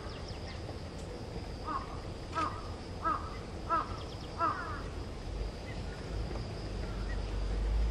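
A crow cawing five times in a row, a little under a second apart, in the first half.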